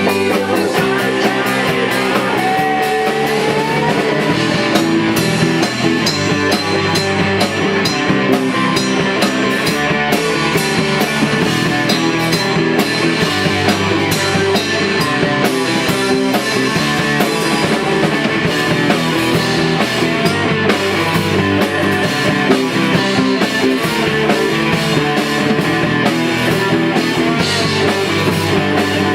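A rock band playing a song at rehearsal, with electric guitar and drum kit, loud and continuous.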